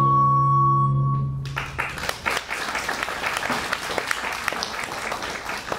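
Theatre music ends on a held chord, and about a second and a half in the audience breaks into applause, a dense patter of hand claps that carries on to the end.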